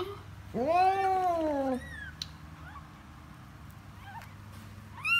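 Domestic cat in labour meowing: one long, loud call that rises and then falls in pitch about half a second in, with short chirping calls around it and another call starting near the end.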